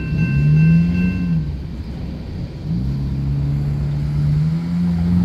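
A railroad crossing's electronic warning bell sounds and stops about a second and a half in. Road vehicles pull away from the crossing: a low engine note rises briefly, then a second one rises about two and a half seconds in and holds steady as it accelerates.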